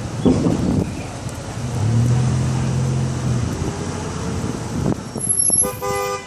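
City street traffic: motor vehicles running and passing, with a steady low engine rumble and swells of road noise. About a second before the end comes a short, high pitched tone.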